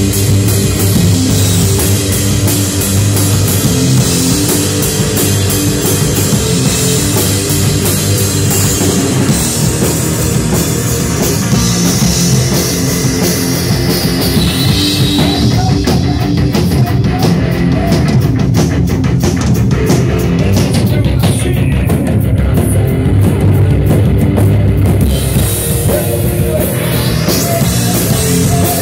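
Live rock band playing an instrumental passage at full volume: drum kit, electric guitar and bass guitar. The bright top end drops away for several seconds midway, then returns.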